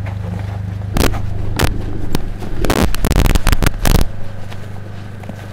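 Sound-system hum from mains power, broken by loud crackles and pops about a second in and in a dense run from two and a half to four seconds; the hum cuts off with the last crackle.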